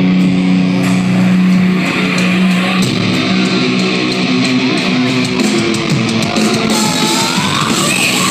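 Rock band playing live through a festival PA, recorded loud on a phone mic: held distorted guitar chords, with a run of drum hits in the middle.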